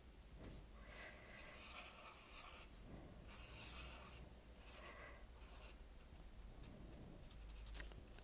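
A black marker pen moving faintly across paper in several short strokes, with a small click near the end.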